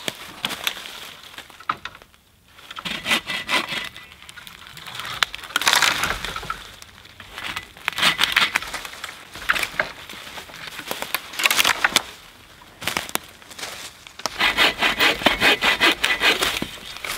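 Bow saw cutting wood in several bursts of quick back-and-forth strokes, with short pauses between. The longest run of strokes comes near the end.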